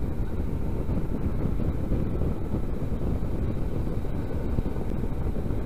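Motorcycle cruising at road speed: steady wind noise on the microphone over a low rumble of engine and road.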